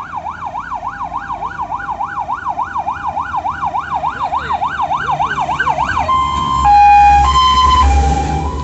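Fire engine's siren on a fast yelp, sweeping up and down about three times a second as the truck approaches. About six seconds in it switches to a stepped multi-tone horn call alternating between two pitches, and the truck's engine rumble swells loudest as it passes close by.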